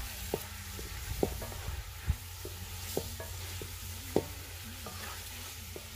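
A wooden spoon stirring a sizzling egg and masala curry in an aluminium pot, knocking against the pot about once a second over a steady sizzle.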